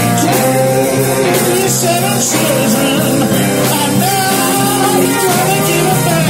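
Live band playing: saxophone, electric guitar and keyboards, with a man singing at the microphone.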